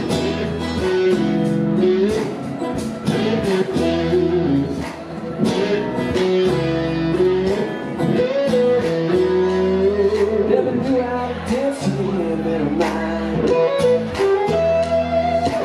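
Live band playing an instrumental break: strummed acoustic and electric guitars over bass guitar and a steady beat, with a bending lead melody line on top.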